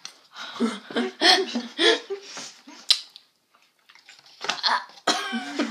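A girl's voice making wordless exclamations and groans, with one short sharp click about three seconds in, followed by a brief lull.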